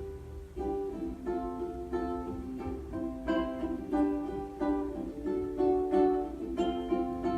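Ukulele playing chords in a steady rhythm, starting about half a second in.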